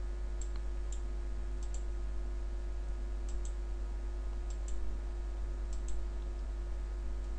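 Computer mouse clicks: about six short clicks, several of them in quick pairs, as files and buttons are clicked through an upload dialog. A steady low electrical hum runs underneath.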